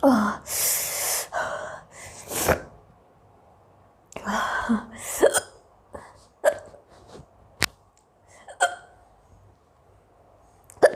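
A woman hiccupping over and over, the hiccups brought on by eating hot green chilli. There are loud breathy bursts in the first two and a half seconds and again about four to five seconds in, then short sharp hiccups about a second apart.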